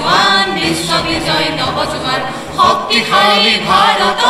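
A group of voices singing together in chorus, with little or no instrumental backing.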